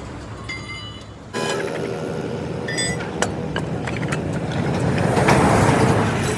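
Roadside vehicle noise: a running engine and passing traffic. It steps up suddenly about a second in, with a few sharp clicks or knocks in the middle and a louder swell near the end.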